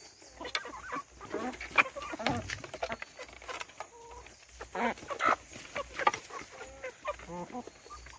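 A flock of village chickens clucking as they feed, with many sharp taps of beaks pecking mash off a trough.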